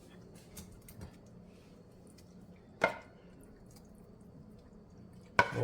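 A utensil working in the pan while the cooked steak is plated: a few faint ticks and one sharp clink about three seconds in, over a steady low hum.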